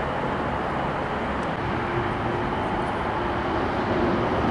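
Steady distant vehicle rumble with a faint hum held through it.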